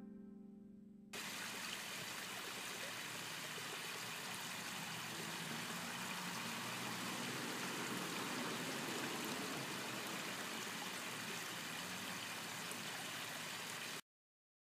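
Garden pond waterfall: water spilling over flat stone ledges into the pond, a steady splashing trickle that starts about a second in and cuts off suddenly near the end. The last of a piano note fades out before the water starts.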